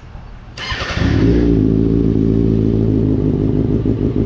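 2024 Kawasaki ZX-6R's 636 cc inline-four firing up about a second in and settling into a steady idle through an M4 slip-on exhaust with its baffle still in.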